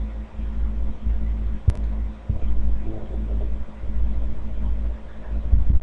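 Steady low rumble with a faint hum, with one sharp click about a second and a half in.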